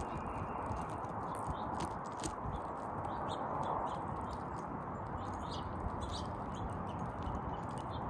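Downy woodpecker pecking at seed on a snowy feeder tray: light, irregular taps and clicks over a steady background hiss.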